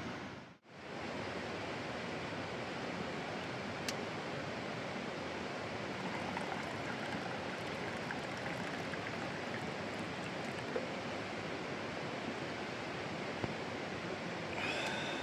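Steady rushing of a mountain stream. It cuts out briefly about half a second in, and a few faint clicks sound over it.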